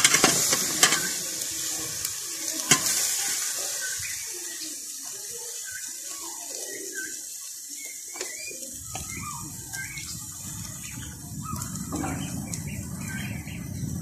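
Pieces of wild water bird sizzling and bubbling in their own released water in a large aluminium pan over a wood fire, with a few sharp clicks of the metal skimmer on the pan in the first three seconds.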